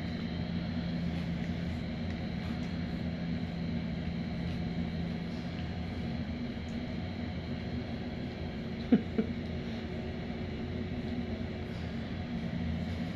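A steady low hum runs throughout. About nine seconds in come two short squeaks, a fraction of a second apart, from a heap of sleeping four-week-old white pug puppies.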